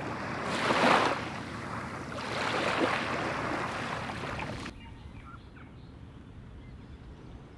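Small waves washing up onto a sandy, pebbly shore, two washes a couple of seconds apart. About five seconds in it cuts to a much quieter outdoor background.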